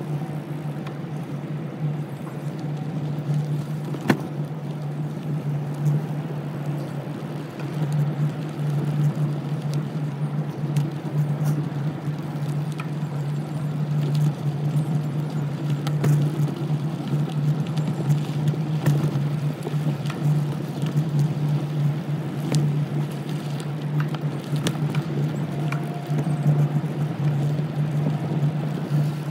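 Bicycle riding fast along a packed-dirt woodland trail: a steady rolling hum from the tyres and drivetrain, with scattered clicks and knocks as it goes over bumps.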